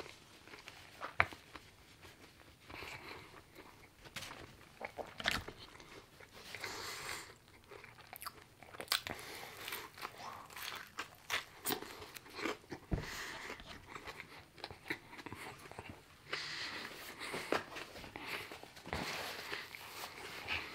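Close-miked eating: biting into and chewing a crispy chicken burger, with sharp crunches and mouth sounds coming irregularly throughout.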